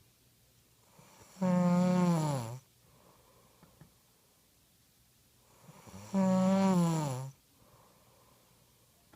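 A sleeping person snoring: two loud snores, each about a second long, droning on one pitch that drops at the end, about four and a half seconds apart, with quiet between.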